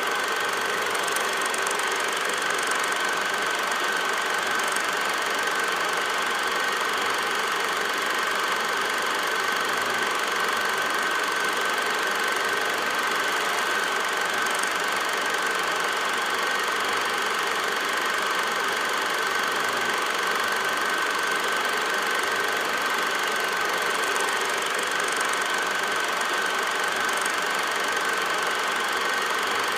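Film projector running steadily: an even mechanical whir with a constant high whine, without break or change.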